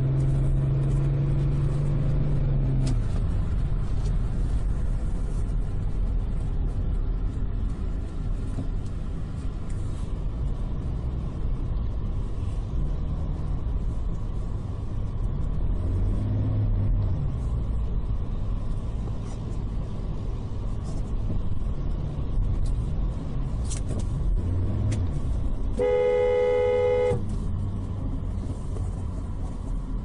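Car driving, with steady road and engine noise heard from inside the cabin. Near the end the car's horn honks once, a single steady blast of a little over a second.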